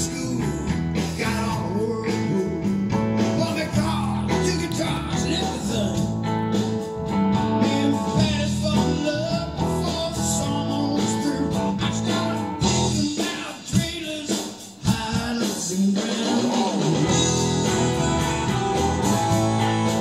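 Live rock band music: electric guitars, bass guitar and drums, with singing in places. The bass and drums drop out for a few seconds in the middle, then the full band comes back in.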